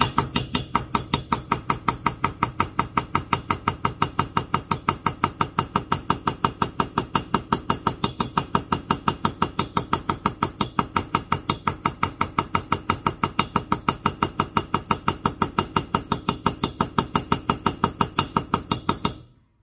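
A light hammer tapping a ball-ended steel punch to stipple the machined plate's surface, giving it a cast-bronze texture. The strikes are rapid and even, about five a second, and each rings briefly. The hammering stops just before the end.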